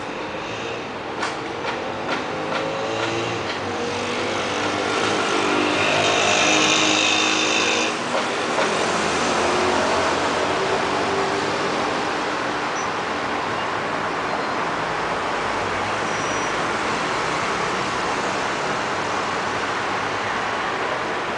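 City traffic noise, with motor tones gliding up and down and a few clicks in the first seconds. A high hiss starts about four seconds in and stops sharply near eight seconds, then a steady traffic rumble carries on.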